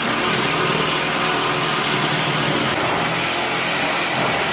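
Milwaukee Sawzall reciprocating saw running steadily at full speed, cutting wood, then cutting off right at the end.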